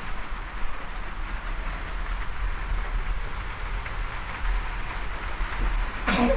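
Steady rain hissing, over a constant low rumble, with a brief sharper sound near the end.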